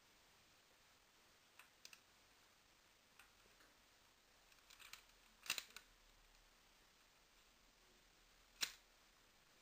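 Scattered sharp mechanical clicks and snaps, such as those from handling and working a Lego-brick shotgun replica, over near silence; the two loudest come about five and a half and eight and a half seconds in.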